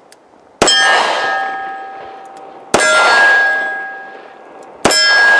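Three shots from a Taurus 85 Ultra Lite .38 Special revolver, about two seconds apart. Each is followed by the clear ring of a hit steel target, fading over a second or two. The load is Federal .38 Special +P semi-wadcutter hollow points.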